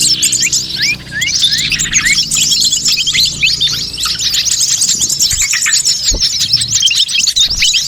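A dense chorus of many small birds chirping and twittering at once, with rapid overlapping calls. It is a mixed bird-lure recording (suara pikat) used to draw in wild small birds.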